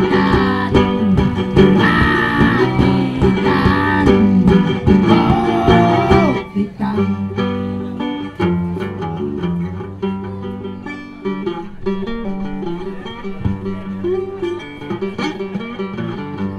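Live acoustic guitar playing with a man singing into a microphone. The singing stops about six and a half seconds in and the guitar carries on alone, a little quieter.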